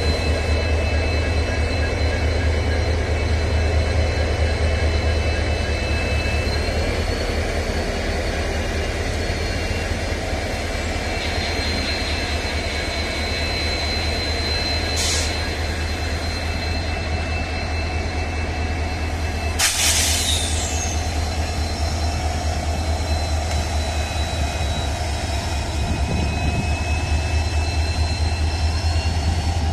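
WDG4 diesel locomotives running, their EMD two-stroke engines making a steady heavy low drone with a thin high whine above it. A short hiss comes about 15 seconds in and a louder, sharper hiss about 20 seconds in.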